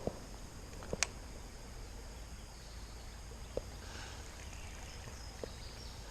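Quiet outdoor creek-side background: a steady faint hiss with a thin, steady high-pitched whine, broken by a few short sharp clicks, one at the start, one about a second in and a weaker one past the middle.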